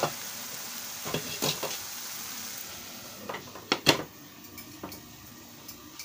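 Water lily stems sizzling in a frying pan on a gas burner, with a few utensil clinks against the pan. A glass pan lid is set on with a couple of sharp clacks about four seconds in, and the sizzling is quieter after it.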